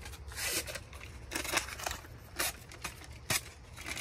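Refrigerated biscuit dough tube being opened and handled: a run of short tearing and scraping rasps of the paper-and-cardboard packaging, with a sharp click a little past three seconds in.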